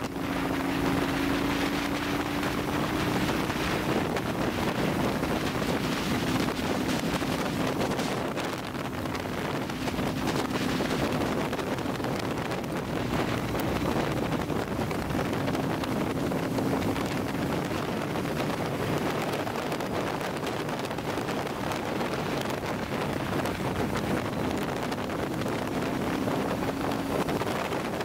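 Sport motorcycle cruising at road speed: heavy wind rush on the microphone over a faint, steady engine note that rises and falls slightly in pitch.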